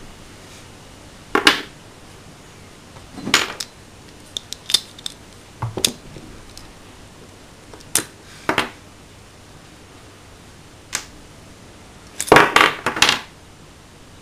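Small metal parts and the metal frame of a Hi-Capa 3.8 airsoft pistol clicking and clinking as they are handled and fitted. Scattered sharp knocks come a second or two apart, with a quick run of louder clatters near the end.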